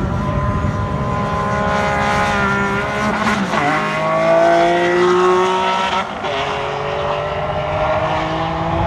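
Ferrari Enzo's 6.0-litre V12 launching with wheelspin and accelerating hard. The revs climb through the gears, with upshifts about three and a half and six seconds in.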